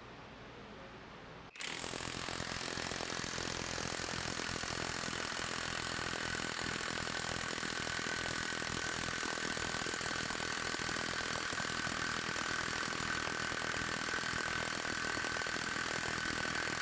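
A Hercules High Torque 1/2-inch brushless cordless impact wrench hammering without a break for about fifteen seconds as it drives a bolt on a torque test fixture, with a steady high ring over the impacts. It starts suddenly about a second and a half in and stops just before the end.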